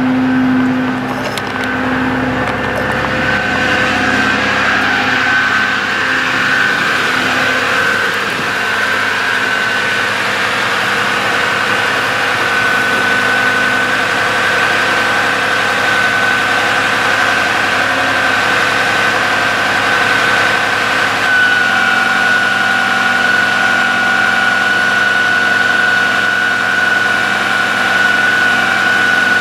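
Dodge 5500 bucket truck running at a steady idle with the PTO engaged, a steady hydraulic-pump whine over the engine. About two-thirds of the way through, the whine steps slightly higher in pitch.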